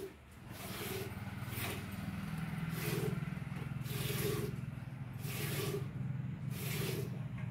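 Hand milking of a cow into a steel pail: milk squirts hiss into the pail in a steady rhythm, about one a second, over a steady low hum.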